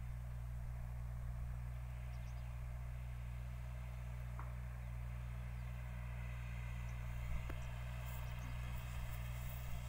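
VST Shakti 932 30 hp compact tractor's diesel engine running steadily in the distance as a low, even hum.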